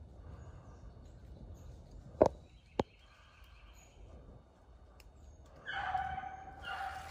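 Two sharp clicks about half a second apart, then, starting near the end, a beagle baying in long pitched notes as it opens on the rabbit's track.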